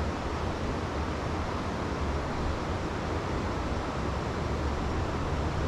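Steady rush of a trout stream's flowing water, with a constant low rumble underneath.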